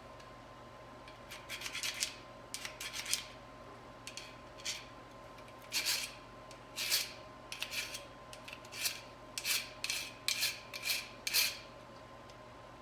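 Hand file rasping on the jaws of a pair of steel vise-grip locking pliers, filing them flat, in a dozen or so short strokes that start about a second in and stop near the end.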